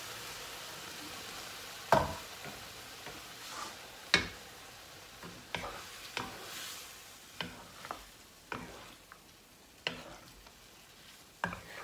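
Chicken sizzling in a hot pan, the sizzle dying away just after lemon and orange juice has been poured in. Then a wooden spatula stirs the chicken and knocks against the pan in sharp, irregular clacks about once a second.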